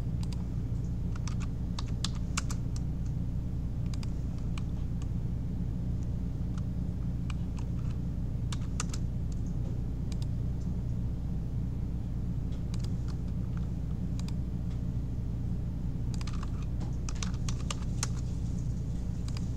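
Keystrokes on a computer keyboard in scattered short runs, typing drawing commands such as trim, over a steady low hum.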